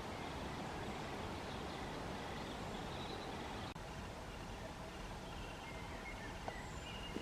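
Steady outdoor background rumble with faint, short, high-pitched bird calls scattered through it, and a small click about six and a half seconds in.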